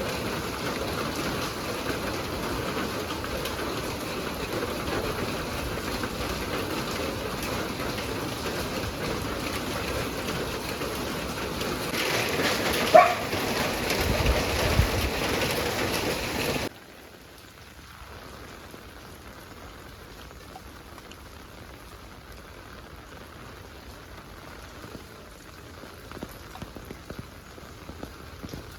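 Heavy rain falling steadily, with a brief sharp louder sound about halfway through. Around two-thirds of the way in it cuts suddenly to quieter, lighter rain with a few scattered drips near the end.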